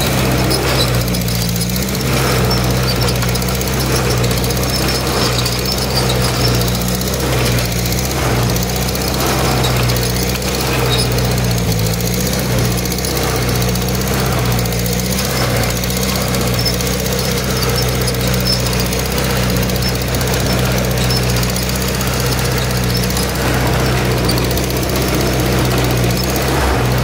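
Farm tractor engine running steadily under load while pulling a plow through the soil, heard close from the driver's seat.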